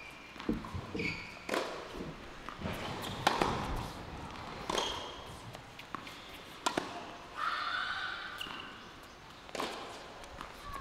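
Tennis rally on a hard court: the ball struck by rackets back and forth, sharp hits about every one and a half to two seconds.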